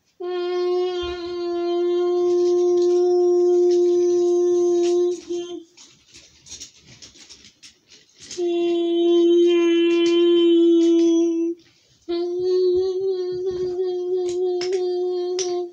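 A child's voice holding three long sung notes at a steady pitch: the first about five seconds, the other two about three seconds each, the last slightly wavering. Light clicks and knocks fall in the gaps between the notes.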